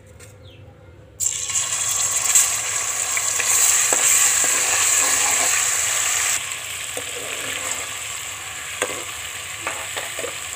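Ginger-garlic paste dropped into hot oil in a metal pot: a sudden loud sizzle starts about a second in, eases to a steadier frying sizzle about six seconds in, and a metal spoon stirs and knocks against the pot a few times near the end.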